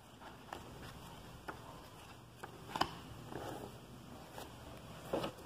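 Books being handled: scattered light taps and knocks with soft paper and cover rustles, a sharper knock about three seconds in and another near the end.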